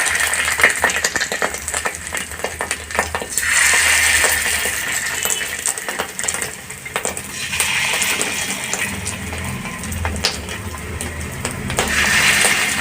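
Fish roe and gram-flour batter patties sizzling in hot oil on a tawa, a steady frying hiss that swells and eases, with scattered sharp clicks of utensils against the pan.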